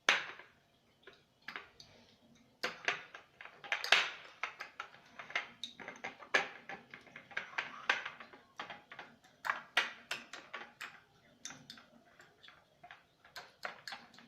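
Kitchen utensils clicking and scraping at irregular intervals as peeled garlic cloves are handled and prepared.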